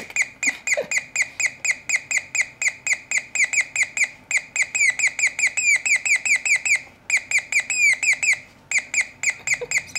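Electronic chirping from a transistor oscillator circuit driving the speaker of an Elenco Electronic Playground 130 kit: rapid chirps about five or six a second, each falling in pitch, slowed by a 470 µF capacitor fitted in place of a 100 µF one. The chirps pause briefly a few times, and some stretch into longer downward sweeps in the middle.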